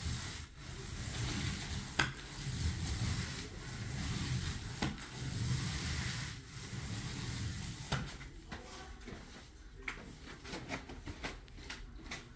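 Paint roller on an extension pole being rolled across a ceiling, a rubbing noise that swells with each stroke about every second and a half, with a couple of sharp clicks. After about eight seconds the rolling stops and there are only small scattered clicks and knocks as the roller is brought down to the paint bucket.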